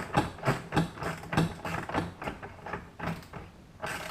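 Socket ratchet turning a nut down onto a mounting bolt, clicking in quick back-and-forth strokes about three a second.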